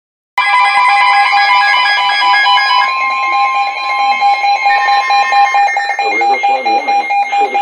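Emergency Alert System two-tone attention signal sounding loudly. It starts abruptly about half a second in and holds steady. The higher of the two tones drops out past the middle, and a voice comes in underneath near the end.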